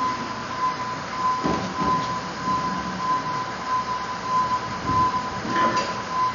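An electronic warning beeper pulses steadily over workshop noise, like a lift or vehicle alarm. A few dull knocks come about a second and a half in and near the end.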